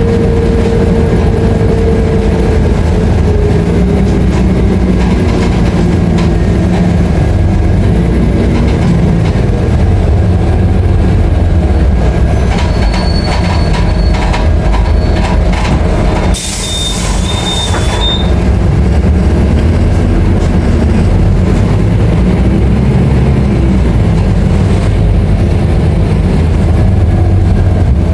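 Scania K310IA bus's diesel engine running under way, its note rising and falling, with rattle and road noise from the bus body. About two-thirds of the way through, a short hiss of air lasts under two seconds.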